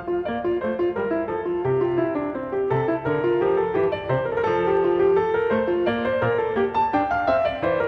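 Piano music playing a steady stream of quick notes over chords.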